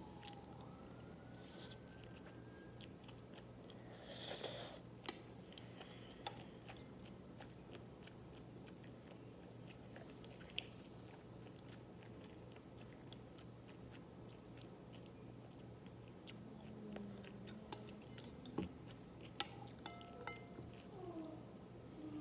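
Quiet chewing of cold naengmyeon noodles, with a short noisy burst about four seconds in and a few sharp clicks scattered through. A faint steady low hum runs underneath.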